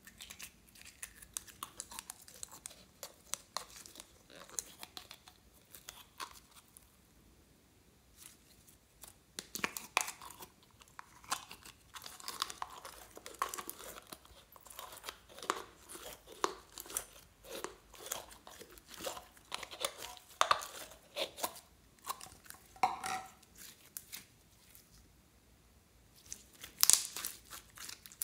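Thin plastic jar of clear blue slime squeezed and crinkled by hand, then the slime worked out onto a bowl of beads: irregular clusters of crackles, clicks and sticky pops, the loudest crackle near the end.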